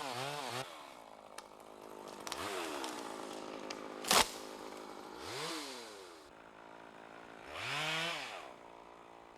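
Chainsaw running, throttled down and revved up again about three times, so its pitch drops and climbs. A single sharp crack comes about four seconds in.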